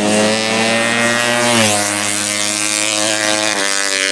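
200cc horizontal-cylinder drag-bike engine revving hard and held high. Its pitch dips about a second and a half in and shifts again near the end.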